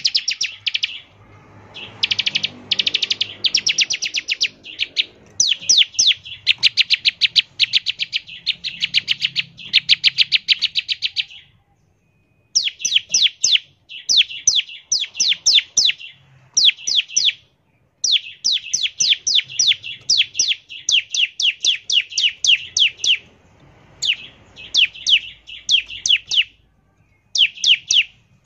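Bar-winged prinia (ciblek) singing in bursts of rapid, high, sharp notes, the fast rattling 'ngebren' trill. Each burst lasts one to a few seconds with short pauses between, and the later bursts are quick runs of falling notes.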